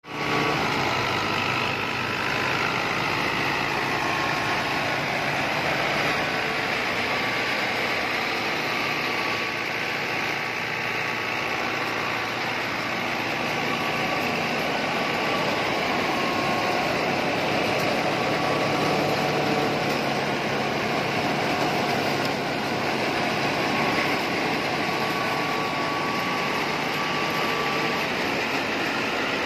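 Tractor-driven threshing machine running steadily under load as sheaves are fed in: the thresher's drum and blower churning with the New Holland 640 diesel tractor's engine running underneath.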